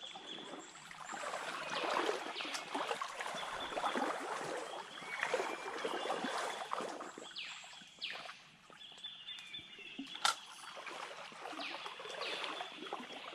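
Shallow stream water running and rippling, with irregular rustling and handling noise close to the microphone and a faint, high, steady whine that comes and goes. A sharp click comes about ten seconds in.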